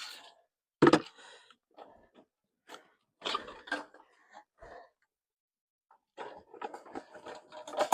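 Goats moving about in a barn pen: a sharp knock about a second in, then scattered bumps and rustles, turning into busier, continuous rustling from about six seconds in.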